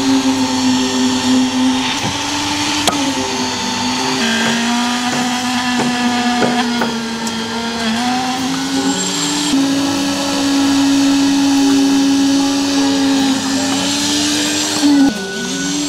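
Motor of the concrete-pouring machinery running with a steady hum, stepping slightly up or down in pitch a few times, with a few light knocks.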